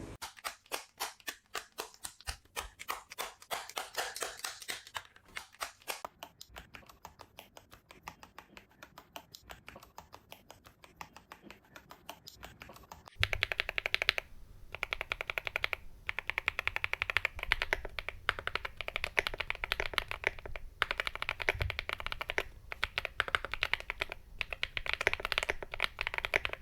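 Typing on a QK75 mechanical keyboard fitted with KTT Coconut Latte linear switches (polycarbonate top housing, nylon bottom housing, POM stem). Keystrokes clack steadily, quieter and sparser at first, then louder and faster from about halfway through.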